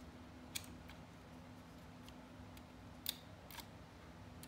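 A few light clicks and taps of small parts being handled as a laptop is put back together, the loudest about three seconds in, over a faint steady hum.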